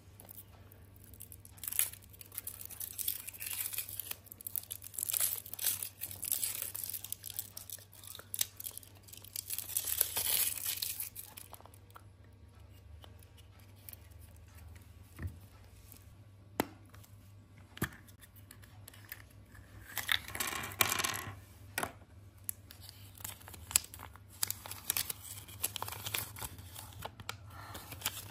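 Foil wrapper of a Kinder Surprise egg crinkling and tearing as it is peeled off by hand, in dense bursts for the first ten seconds or so. A few sharp clicks and snaps follow as the chocolate shell is split open, then another short spell of crinkling and rustling.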